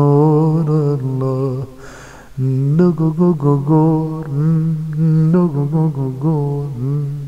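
A man singing unaccompanied in a low, warm voice: an Arabic devotional song with a wavering, ornamented melody. He stops briefly to draw a breath about two seconds in.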